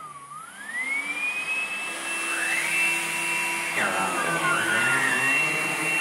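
Hoover Blade+ cordless stick vacuum running with a high motor whine. Near the start the whine dips sharply in pitch and climbs back to a steady high pitch over about two seconds, around when the brush roller is switched on. From about four seconds in, the sound wavers as the head is worked over carpet.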